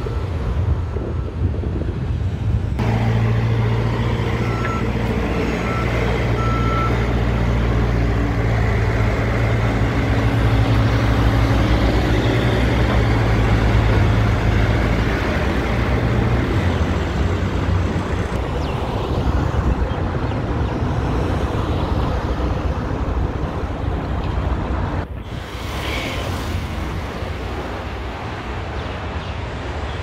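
A construction vehicle's engine runs steadily, with a few short reversing beeps around five seconds in. About halfway through the engine note falls away, leaving a steady rumble of site and traffic noise.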